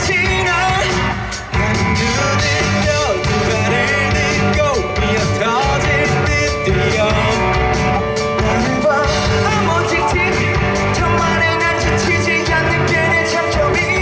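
Amplified live rock music with singing over a full band sound of guitar and drums, playing continuously.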